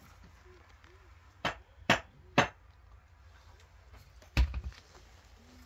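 Hard knocks during cinder-block wall work: three sharp knocks about half a second apart, then, about two seconds later, a heavier thud followed by a short rattle.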